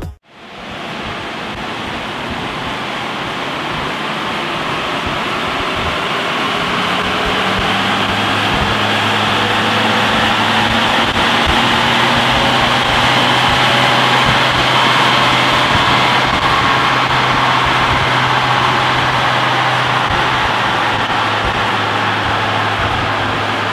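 BMW X3 35d's three-litre twin-turbo straight-six diesel running under load on a chassis dynamometer, its revs climbing slowly through a long pull. A steady rush of noise runs with it, growing louder over the first dozen seconds and easing a little near the end.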